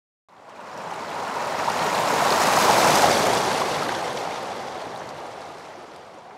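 A rush of noise with no clear pitch swells for about three seconds and then slowly fades away. It is a recorded sound picked from a sound library by a drawn touch gesture and played back.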